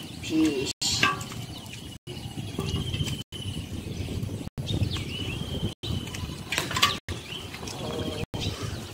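Birds chirping against rural background noise, with a couple of sharp slaps or splashes, one about a second in and one about two-thirds through. The sound cuts out for an instant about every second and a quarter.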